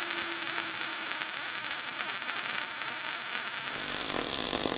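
MAG welding arc running steadily on a vertical-up weld in 4 mm steel plate at 80 amps, an even hiss that grows louder near the end.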